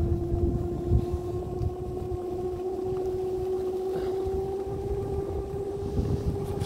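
Electric vehicle motor whining at one steady pitch that creeps slowly upward, over a low rumble of wind on the microphone. There is a knock about a second in.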